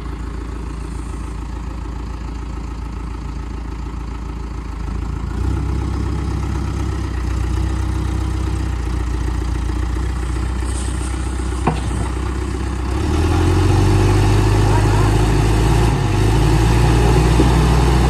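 Diesel engine of a Caterpillar backhoe loader running. It revs up about five seconds in and louder again about thirteen seconds in, as the machine raises its front bucket and moves.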